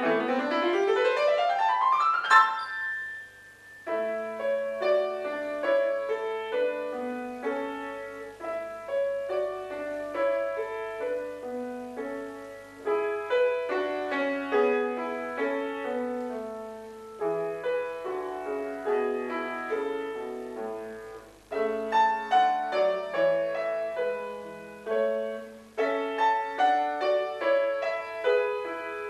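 Grand piano played solo: a fast rising run ends a passage about two seconds in, then after a short pause a new passage of quick notes in the middle register, in phrases.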